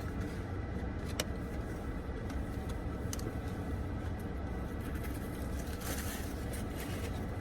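Steady low hum of a car's air conditioning running, heard inside the cabin, with a few faint clicks and a brief crackle about six seconds in.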